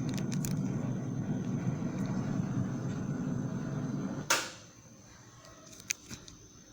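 Cassette tape hiss in the silent gap between songs, broken about four seconds in by a sharp click, after which the hiss falls to a much fainter background with a few small ticks.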